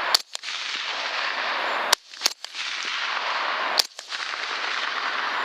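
Rifle shots fired at coyotes on a countdown: several sharp cracks spread a second or two apart over a steady hiss.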